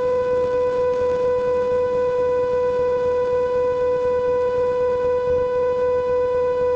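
A steady tone held on one pitch, with overtones, unchanging in pitch and level.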